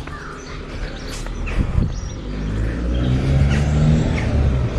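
A car engine drawing nearer, its low drone growing steadily louder through the second half, with small birds chirping.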